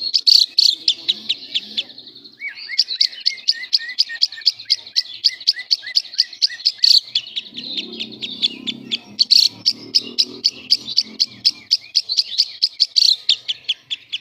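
A lovebird singing a long, rapid chattering run of high chirps in the 'semi-konslet' style, with a brief break about two seconds in.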